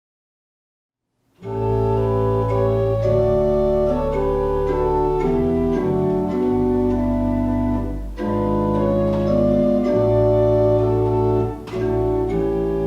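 Organ playing slow, sustained hymn chords over a deep bass line, starting about a second and a half in after a moment of silence.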